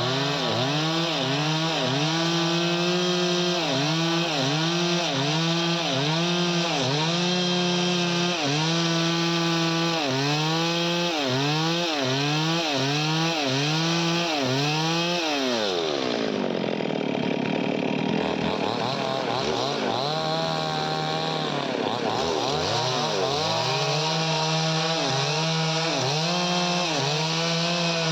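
Two-stroke chainsaw cutting wood, its engine speed rising and falling about once a second. About halfway through it drops to idle for several seconds, then speeds up and cuts again.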